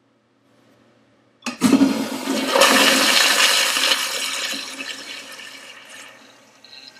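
Toilet flushing: the flush starts suddenly about one and a half seconds in, with a loud rush of water into the bowl that fades away near the end.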